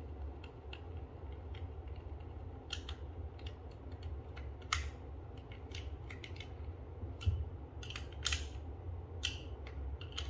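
A small screwdriver driving a screw into a plastic soap-dispenser housing: irregular small clicks and scrapes of the bit and the plastic, the loudest about halfway and two-thirds of the way in, over a steady low hum.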